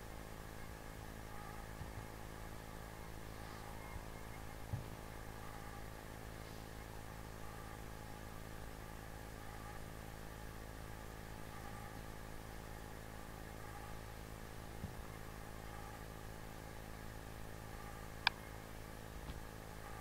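A steady low hum made of several fixed tones, with a few soft thumps and one sharp click near the end.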